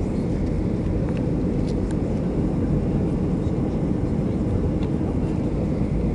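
Steady low rumble of a Boeing 737's jet engines and rushing airflow, heard inside the passenger cabin, with a couple of faint clicks about two seconds in.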